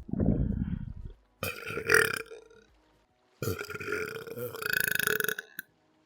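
A person belching: a deep belch at first, then a short one about a second and a half in, and a longer drawn-out belch from about three and a half seconds in. Each starts abruptly, with short silences between.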